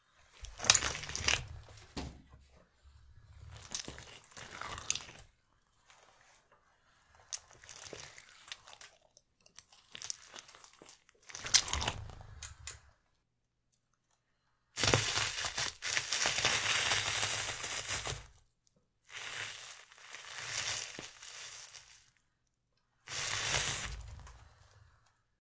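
A bicycle tyre crushing soft and crunchy things in a series of separate bursts: slime squashing under the tread, then wafer biscuits crunching near the end.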